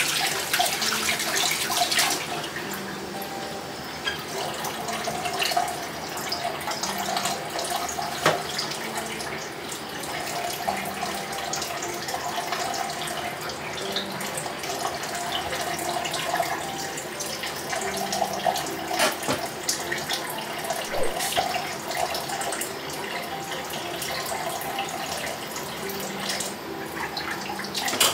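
Water running from a kitchen tap into a sink, heavier for about the first two seconds and then a steadier, lighter flow, with scattered light clinks and knocks.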